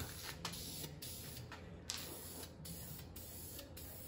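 Compressed air hissing from a blow gun at a tractor fuel tank opening, faint and on and off with short breaks.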